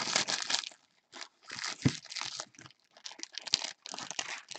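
Foil trading-card pack wrappers and cards crinkling and rustling in gloved hands, in irregular bursts with short pauses. A light knock a little under two seconds in and a sharp click later on.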